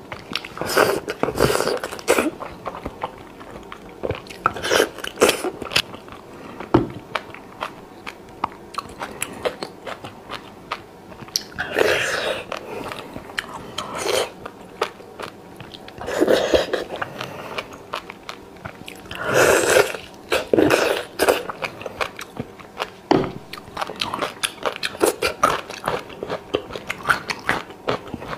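Close-up mouth sounds of eating spicy-sauced beef bone marrow: wet chewing and biting with many small clicks and smacks, and louder stretches every few seconds.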